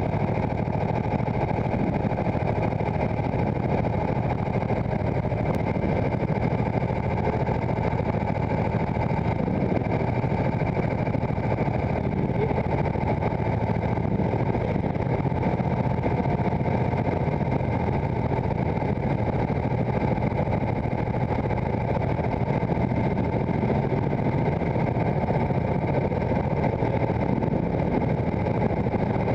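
Go-kart engine idling steadily.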